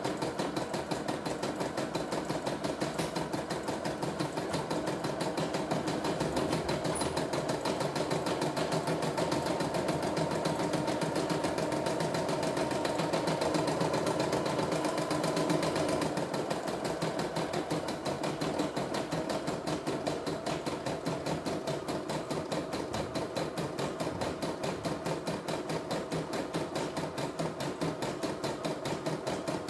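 CNY E960 computerised embroidery machine stitching a design, its needle striking in a rapid, even clatter at steady speed.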